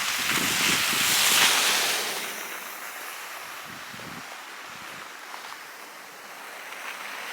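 Gust of storm wind with blowing snow: a loud hissing rush that swells about a second in, then eases to a quieter steady hiss.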